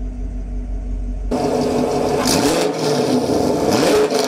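Chevrolet Camaro SS V8 with long-tube headers, no catalytic converters and the factory dual-mode NPP exhaust, its valves open in track mode. It idles, then about a second in it is revved twice, each rev rising and falling back.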